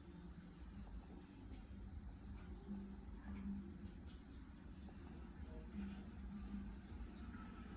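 Insects trilling in repeated pulsed trains about a second long, with short gaps between them, over a steady higher-pitched insect drone.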